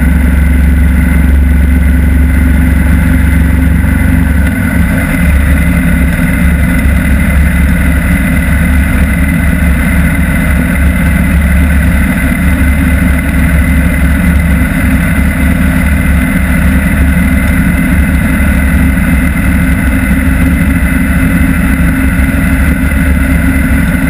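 Motorcycle riding at a steady cruising speed: engine drone mixed with wind and road noise, loud and even throughout.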